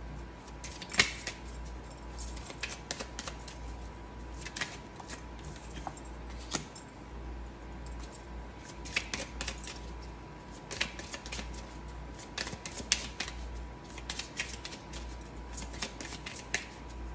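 Oracle card deck shuffled by hand: cards flicking and slapping against each other in quick, irregular clicks, with a few louder snaps.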